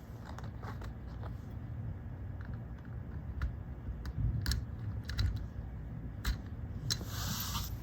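Scattered light clicks and taps as the two halves of a curtain track's master carrier are pushed together and a center clip is fitted, with a brief rustle near the end, over a steady low hum.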